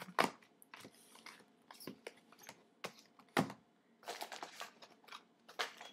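Hands handling small packaged items and paper on a table, with irregular clicks, taps and rustling, and a reach into a tote bag. The sharpest knocks come about a quarter second in and at about three and a half seconds, with a run of crinkly rustling between four and five seconds.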